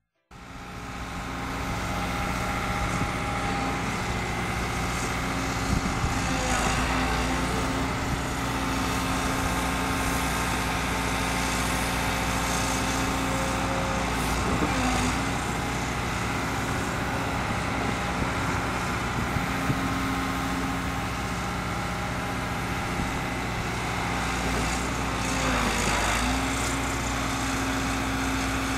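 Liebherr 924 Litronic excavator's diesel engine running steadily under work, its pitch dipping briefly three times, with a few faint clanks.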